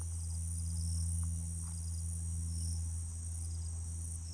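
Steady shrill insect chorus, crickets trilling without a break, with short repeated chirps in small groups, over a steady low hum.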